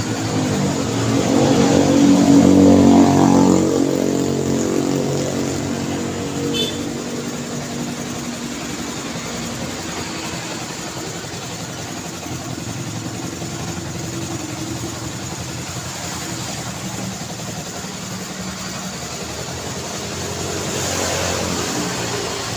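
Road traffic: a vehicle engine passes close, loudest about two to three seconds in, then fades into a steady rumble of traffic. Another vehicle swells past near the end.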